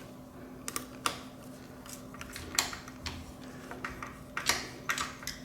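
Scattered light clicks and taps of a screwdriver and small screws being worked into a plastic controller cover, about six irregular clicks.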